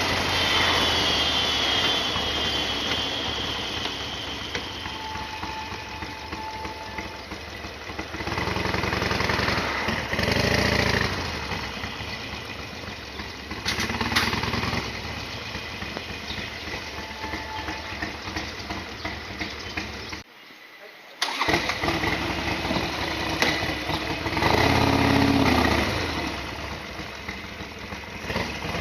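Harley-Davidson Sportster XL1200R's air-cooled V-twin running under way, revving up and easing off several times. About twenty seconds in it cuts out abruptly for about a second.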